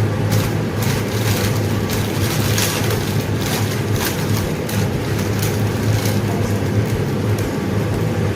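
Steady rumbling hiss with a low hum, broken by scattered short clicks and clinks, from instant noodles being cooked on a stove.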